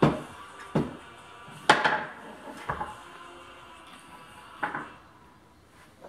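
Small wooden tray knocked against the floor by a toddler: about six sharp wooden clacks at uneven intervals, the loudest right at the start and just under two seconds in.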